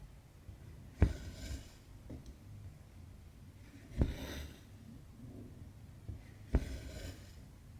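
Embroidery needle tapping through taut Aida cross-stitch fabric, each sharp tap followed by a short swish as the cotton thread is drawn through. This happens three times, about three seconds apart.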